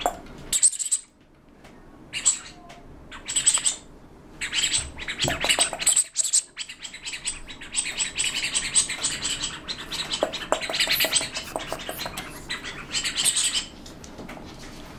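A dog's squeaky toy squeezed over and over, giving high, chirpy squeaks. They come in short bursts in the first few seconds, then run almost without a break through the middle and stop about a second before the end.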